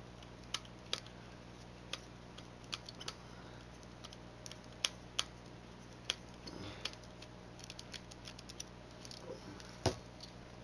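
Plastic clicks and small taps at irregular intervals as a TV remote control's plastic case and parts are handled and worked apart. A louder knock comes near the end.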